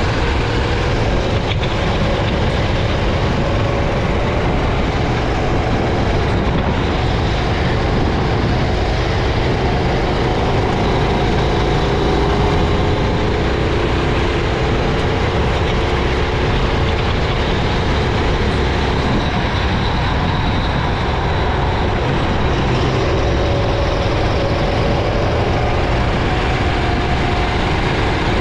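Racing kart engine running hard, heard from on board the kart, its pitch slowly rising and falling as it accelerates and slows, under a steady rushing noise.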